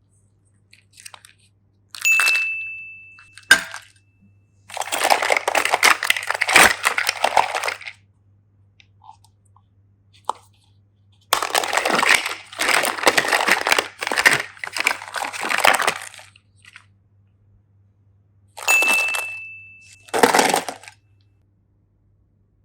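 Kinder Surprise eggs being handled and opened: repeated spells of crinkling and crackling a few seconds long, with sharp plastic clicks, separated by short pauses.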